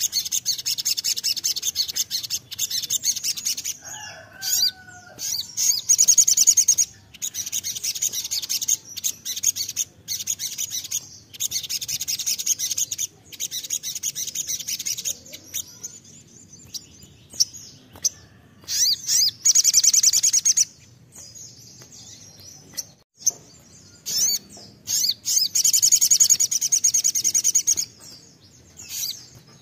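Caged male olive-backed sunbird singing in long, rapid, very high chirping runs, phrase after phrase with short pauses between. This is the fast "nembak" singing that bird keepers play as a lure to get other birds to sing.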